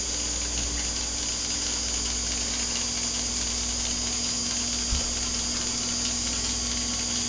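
Lego Mindstorms cable car's electric motor and gears whirring steadily as it drives itself along its cable, with one brief knock about five seconds in.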